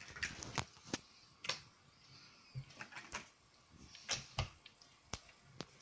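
Large plastic toy building blocks clacking against each other as a child's hand rummages through a pile of them: a dozen or so light clicks and knocks at irregular intervals.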